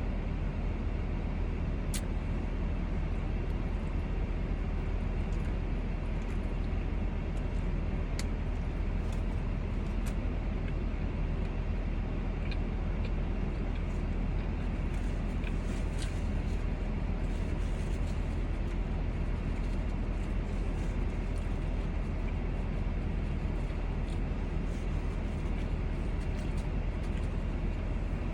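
Steady low hum of a car cabin with the engine running, and a few faint clicks.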